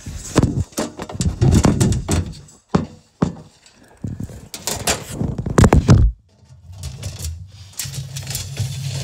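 Handling noise from a handheld camera: irregular rubbing, thumps and knocks right on the microphone as it is moved and covered. After about six seconds this gives way to a low, steady hum.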